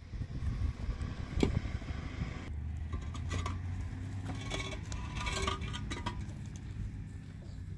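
Light metallic clinking and jangling, clustered in the middle, over a steady low rumble.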